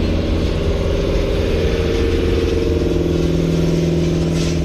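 An engine runs steadily, a loud continuous drone whose tone changes slightly about two seconds in.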